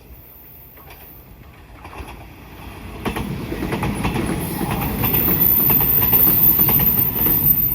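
JR West 381-series electric express train approaching and running past: a rising rumble and rapid clatter of wheels over rail joints, loudest in the last few seconds, with a thin high whine over it.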